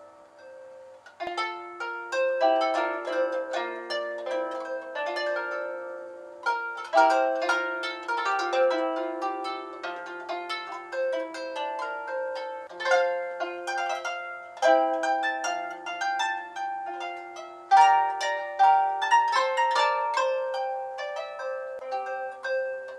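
Harp music: plucked strings ringing in a flowing melody over chords, quiet at first and fuller from about a second in.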